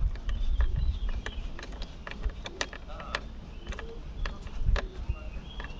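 Irregular small clicks and taps of fuses and relays being handled and pushed back into a car's fuse box, over a low rumble of handling noise.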